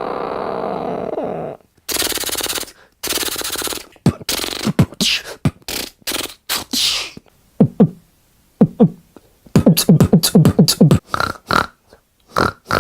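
Beatboxer making sound effects with his mouth: a held buzzing noise for about a second and a half, two short bursts of hiss, then a string of short vocal sounds that drop in pitch, coming quickly near the end.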